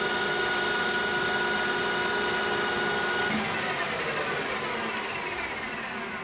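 Metal lathe running steadily, then switched off about three seconds in; its whine falls in pitch and fades as the spindle and motor spin down.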